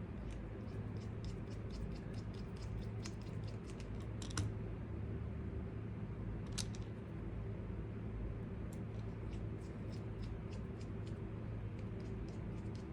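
Scattered light clicks and ticks of small RC crawler parts and tools being handled at a workbench, over a steady low hum.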